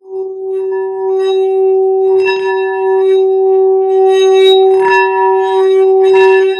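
A singing bowl rung with a leather-wrapped mallet: one steady humming tone with higher ringing overtones. It is broken by three brief knocks about two, five and six seconds in.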